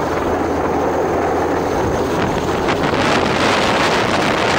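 Downwash from a low-hovering Chinese Navy helicopter's rotor blasting the microphone: a heavy, steady rush of wind noise with a low drone from the helicopter underneath.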